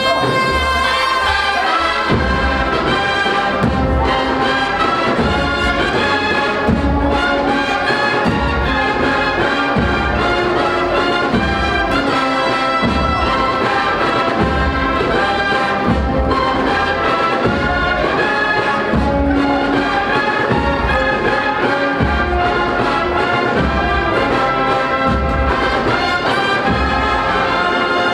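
Spanish Holy Week agrupación musical, a processional band of brass and drums, playing a march: held brass melody over a steady low drum beat.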